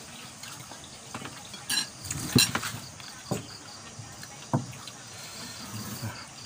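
Plates and bowls clinking and knocking a few times as people eat by hand at a table, with crickets chirping steadily in the background.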